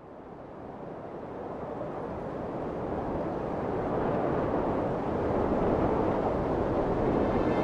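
A low, rushing, wind-like rumble of sound-design ambience that fades up from nothing and keeps growing louder, with no distinct events in it.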